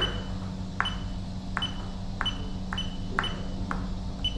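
Button presses on an AHF/SVG power-quality unit's control panel while parameters are set: about eight short clicks, each with a brief high beep, roughly two a second, over a steady low hum.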